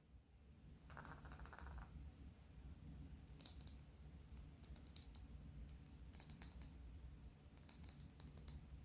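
Faint crinkling and tearing of a candy or surprise-egg wrapper being handled and opened, in short bursts of crackly rustles and clicks, over a low steady hum.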